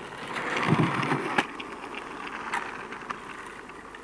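Skateboard wheels rolling on asphalt, getting louder to a peak about a second in, then a sharp clack of the board about a second and a half in and a lighter knock about a second later.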